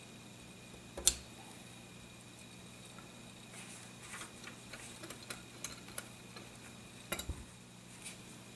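Small metal clicks and taps from handling shotgun parts, a pin drift and a steel bench vise: one sharp click about a second in, a run of lighter ticks in the middle, and another sharp click about seven seconds in.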